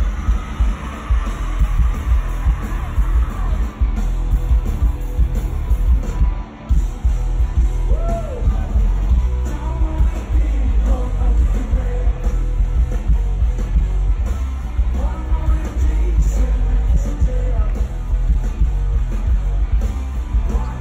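Live rock band playing loud, with drums, bass and electric guitars under a singer yelling the words. It is heard from within the crowd, with a heavy, booming low end, and the band drops out briefly about six and a half seconds in.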